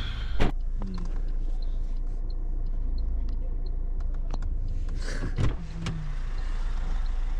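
Clunks and clicks of someone rummaging in a car with its door open, searching for a phone, over a steady low rumble. A sharp clunk comes about half a second in, and smaller knocks cluster about two thirds of the way through.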